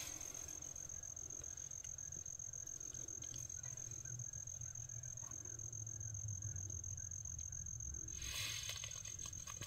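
Crickets trilling steadily at one high pitch, with a short rustle near the end.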